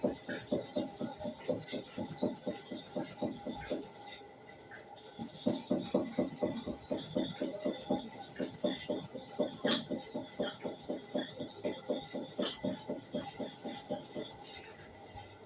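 A hair clipper blade being sharpened by hand, rubbed back and forth against an abrasive surface in quick, even strokes of about four or five a second. The strokes stop for about a second, roughly four seconds in, then start again.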